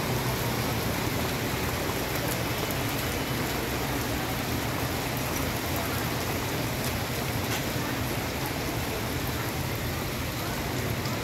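Heavy rain falling steadily and splashing on wet pavement, with a low hum underneath.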